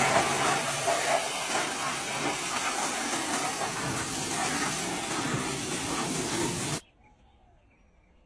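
Car pressure washer spraying water: a loud, steady hiss that cuts off abruptly about seven seconds in.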